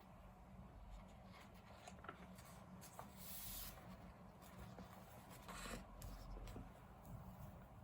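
Faint handling sounds: a few small clicks and two brief rustles, about three and a half and five and a half seconds in, over a low room hum.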